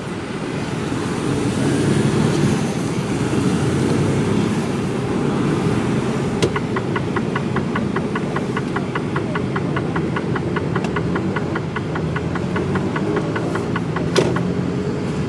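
Mercedes Actros truck's diesel engine running steadily, heard from inside the cab. Partway through, a fast even ticking of about five a second starts and runs for around seven seconds, and there is a single sharp click near the end.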